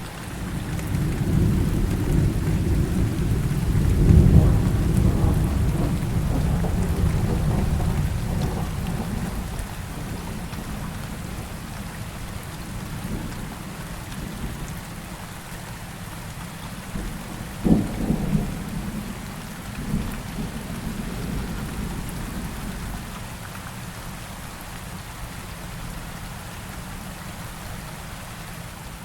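Steady rain with thunder: a long low rumble over the first several seconds that fades out, then a sharp crack about two-thirds of the way through followed by a short rumble.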